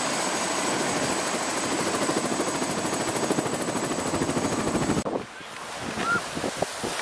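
Helicopter's turbine and spinning rotor running on the pad, a dense steady noise with a fast chop. About five seconds in it cuts off abruptly to a quieter stretch of boots crunching and scraping through snow beside a sled, with one short high squeak.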